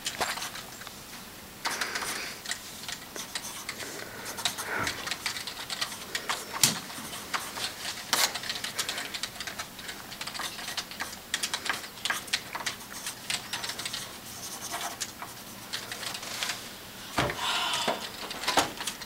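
Computer keyboard being typed on: an uneven patter of key clicks.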